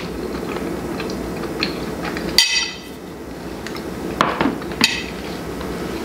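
Metal fork clinking against a ceramic plate, with one sharp clink about halfway through and a few more clinks and knocks near the end as the plate is set down on a glass cooktop.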